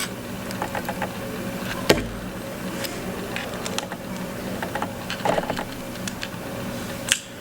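Scattered light clicks and taps of small prying tools working the glued battery out of an iPhone 5, with one sharp click about two seconds in, over a steady low hum.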